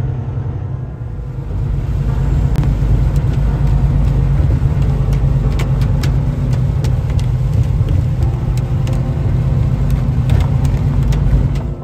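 Steady low rumble of a semi-truck's engine and tyres on a wet road, heard from inside the cab, with a hiss of water spray. From about two and a half seconds in, a run of sharp, irregular ticks and knocks comes in, from rain and spray striking the windshield or the bridge deck's joints.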